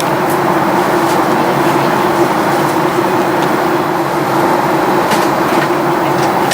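Steady drone of a Boeing 737 heard inside the passenger cabin: engine and airflow noise holding level, with a few faint clicks.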